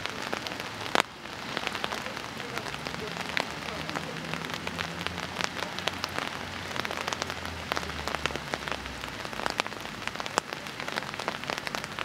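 Rain pattering, a dense, irregular crackle of sharp drop taps, with a faint low steady hum through the middle.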